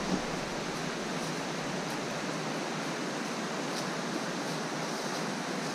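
A mountain creek rushing steadily, with a few faint ticks over it.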